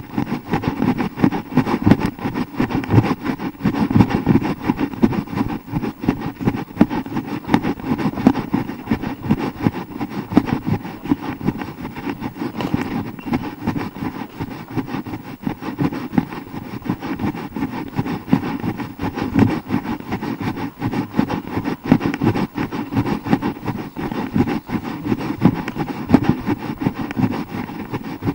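Steady rumbling and bumping handling noise from a handheld YI 4K+ action camera jostled in the hand of a jogging runner, with footfalls mixed in.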